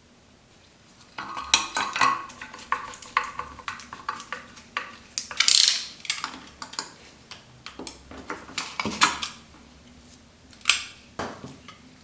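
Metal parts and hand tools clinking, tapping and knocking against each other on a workbench during work on a bench grinder. The sounds start about a second in and come as an irregular run of sharp clinks, with a short scrape around the middle and a few heavier knocks near the end.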